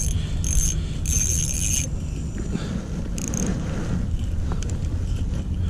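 Wind rumbling steadily on the microphone, with short high whirring bursts in the first two seconds and again about three seconds in from a spinning reel being cranked to bring a hooked crappie up through the ice hole.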